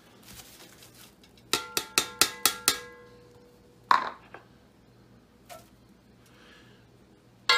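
About six quick ringing taps, then a single knock and another ringing tap near the end: kitchenware knocked against an enameled cast iron Dutch oven as diced onions and peppers are tipped in.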